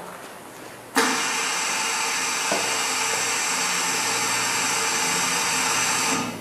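A machine's motor running steadily with a whirring hiss, switching on suddenly about a second in and cutting off suddenly about five seconds later.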